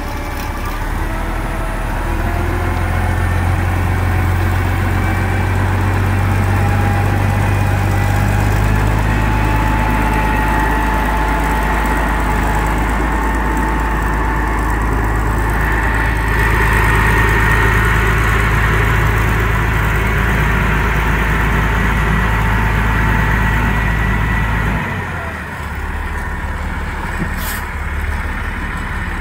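The Mitsubishi MG300 road grader's diesel engine runs steadily with a deep hum and a faint high whine. Near the end the engine note drops and gets a little quieter.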